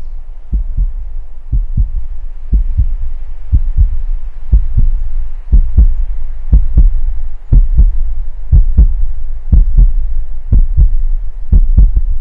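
Heartbeat sound effect: a low double thump (lub-dub) about once a second over a deep steady rumble, growing louder.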